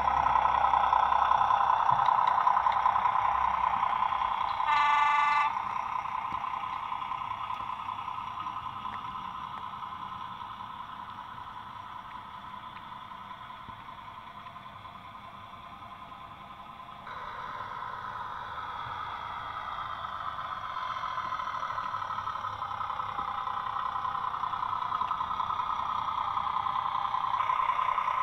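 Sound-fitted OO gauge model diesel locomotive running, with one short horn toot about five seconds in. The engine sound fades away towards the middle, then grows louder again.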